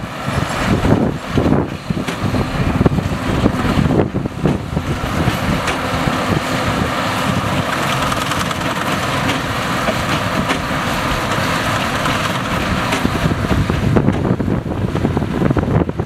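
Fendt 724 tractor's six-cylinder diesel engine running steadily under load as it pulls a New Holland BigBaler 890 large square baler, with the baler's machinery working the straw. Wind buffets the microphone, most in the first few seconds.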